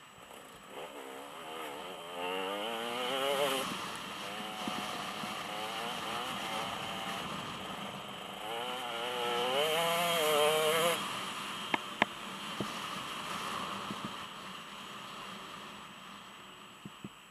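Dirt bike engine on a trail ride, its pitch rising and falling as the throttle is worked, loudest in two bursts of acceleration. A couple of sharp knocks come about twelve seconds in.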